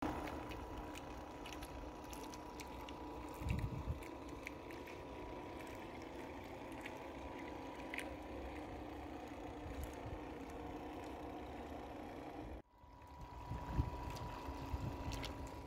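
Model ocean liner's drive motor humming steadily with a thin whine, over water trickling and lapping around the hull. The sound breaks off briefly near the end and fades back in.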